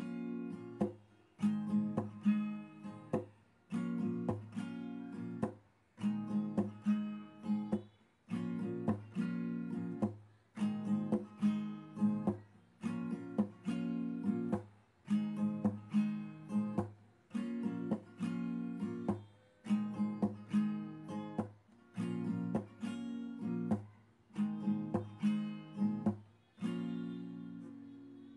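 Background music: a strummed guitar playing chords in a steady rhythm, with the last chord ringing out near the end.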